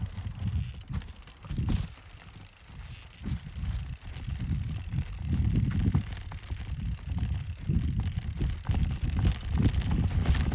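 Mountain bike riding down a dirt trail: a gusty low rumble from the tyres and the wind, with scattered clicks and rattles from the bike. It eases off about two to four seconds in, then builds again.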